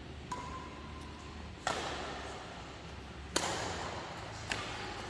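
Badminton rally: a racket strikes the shuttlecock four times, each a sharp crack about a second and a half apart, over a steady hiss of rain.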